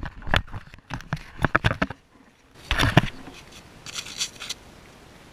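Boots crunching and scraping on granular ice close to the microphone: a run of short scuffs and clicks, a louder scuff about three seconds in, and a crisp crackle about a second later.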